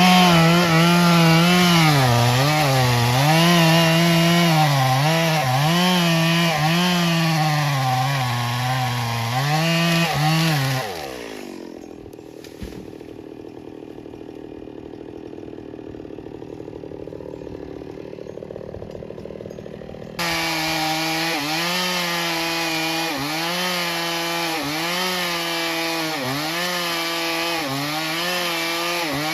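Two-stroke chainsaw cutting wood, its engine pitch dipping and recovering about once a second as the chain bites under load. About eleven seconds in the pitch falls away and the saw idles quietly for several seconds, then it is abruptly back at full speed, cutting again.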